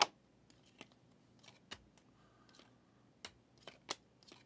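Trading cards being handled and flicked through by hand: a series of sharp clicks and snaps of card stock, the loudest right at the start and a few more near the end.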